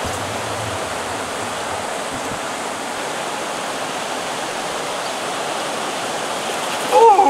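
Steady rushing of a fast, clear river. Just before the end, a person's short call falls in pitch.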